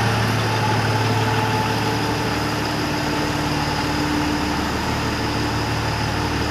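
Tata 1918 BS6 truck's diesel engine idling steadily, a low even hum.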